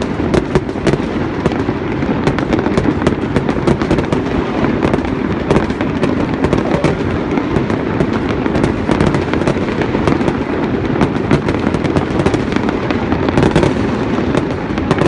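New Year's fireworks display in full barrage: many bangs and crackles a second without let-up, over a continuous rumble of bursts.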